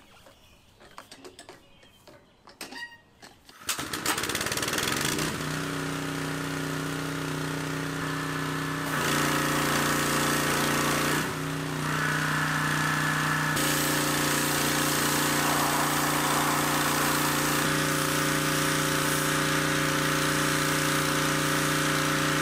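Gas pressure washer with a Harbor Freight Predator engine starting about three and a half seconds in, after a few faint knocks, then running steadily. Its engine note shifts several times under changing load, and a hiss of high-pressure spray joins about nine seconds in.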